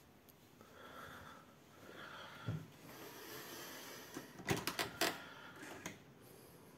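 Faint handling noise, then a quick cluster of sharp clicks and knocks about four and a half seconds in: an interior door's handle and latch being worked as the door is opened.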